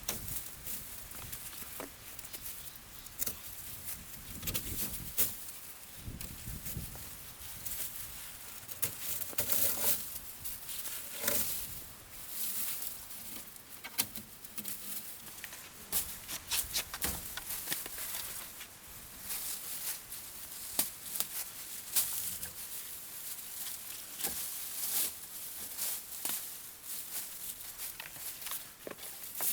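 Irregular rustling, tearing and crackling of dry plant material, with scattered sharp clicks and snaps, as dry hop vines are pulled down and torn away.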